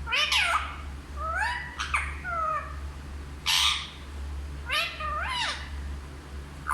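Pet parrot calling: four short, pitched calls that glide up and down, and one harsh screech about three and a half seconds in.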